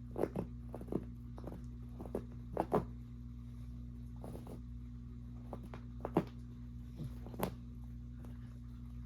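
About a dozen short, irregular sounds from resting dogs, coming singly or in close pairs, over a steady low hum.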